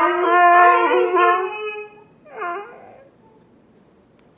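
Husky howling and "talking": one long drawn-out call that ends about two seconds in, then one short call a moment later.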